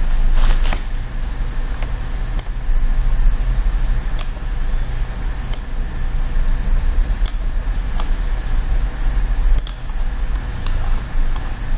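Computer mouse clicking, about eight sharp clicks spaced a second or two apart, some in quick pairs, over a steady low hum.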